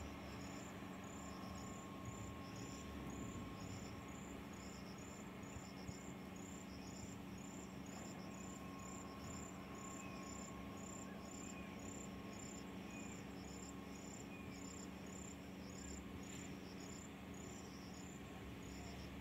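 Insects chirping in a steady, even rhythm of about two high chirps a second, over a faint low hum.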